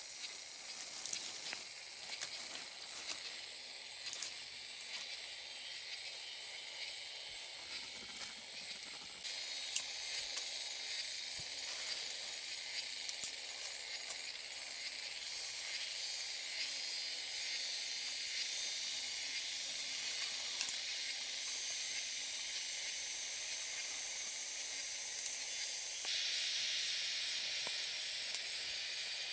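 Dry sticks and leaf litter rustling and snapping in short crackles as they are gathered up by hand, over a steady high hiss of forest background.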